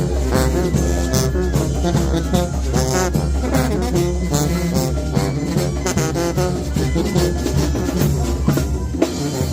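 Banda sinaloense brass band playing live: brass horns over drums and a heavy bass line, with the deepest bass dropping out just before the end.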